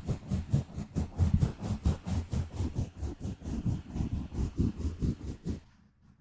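Gentle scratching directly on a microphone, in quick even strokes about five a second with a deep thudding body. It stops shortly before the end.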